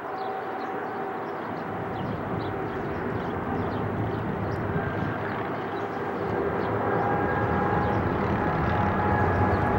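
Boeing 777 airliner on landing approach with its gear down, its twin GE90 turbofans growing steadily louder as it comes nearly overhead: a broad jet rumble with a steady engine whine over it.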